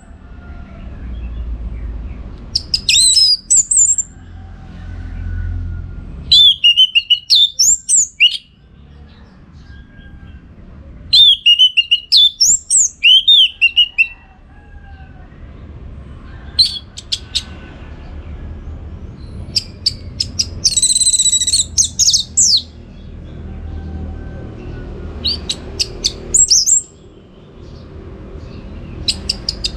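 Orange-headed thrush singing loud, high, quickly varying phrases of one to three seconds, separated by pauses of a few seconds, over a faint low rumble.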